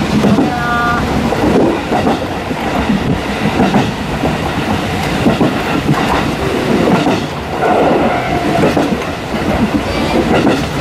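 Train running noise from the open rear observation deck of a DD51-hauled passenger train: a steady rumble of the coaches' wheels with the clickety-clack of wheels crossing the joints of unwelded, jointed rail. A couple of brief high tones ring out, one about half a second in and another near eight seconds in.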